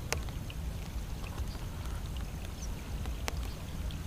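Wind buffeting the microphone as a steady low rumble, with a sharp click just after the start and another a little past three seconds in.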